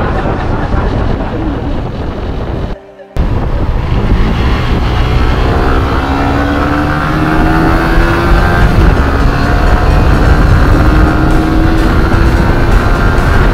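Suzuki GSX-S150's single-cylinder engine pulling under acceleration, heard over heavy wind and road rumble. Its pitch climbs slowly, drops once at a gear change about nine seconds in, then climbs again. The sound cuts out briefly just before three seconds in.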